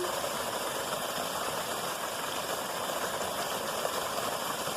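Steady rushing of creek water over a small waterfall, an even hiss without breaks.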